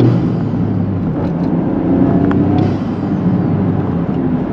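Toyota GR Corolla's turbocharged three-cylinder engine with a K&N aftermarket intake, heard from inside the cabin with the windows up while driving: a steady engine drone over road rumble, still loud through the closed windows.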